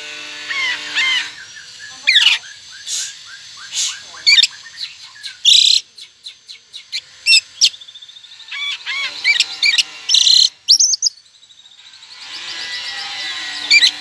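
Oriental magpie-robin singing in full form: a persistent run of varied whistles, chirps and sharp harsh notes in quick phrases, with a short lull about two-thirds of the way through. This is the kind of song kacer keepers play to goad other magpie-robins into answering.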